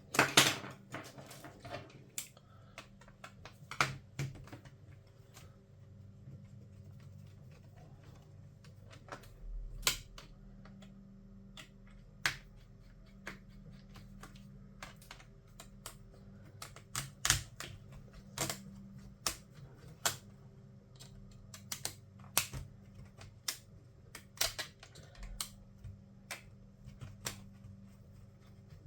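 Sharp, irregular clicks and taps of small hand tools and parts on a laptop's metal and plastic case during disassembly, over a faint steady low hum.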